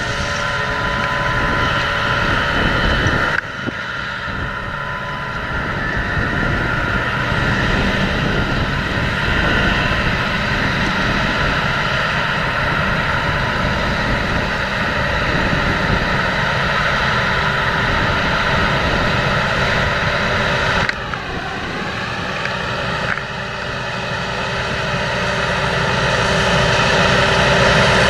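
John Deere 7230R tractor's six-cylinder diesel engine running steadily under load while pulling a seed drill, a constant engine drone with a steady whine over it. The sound changes abruptly a few times and grows louder near the end as the tractor comes close.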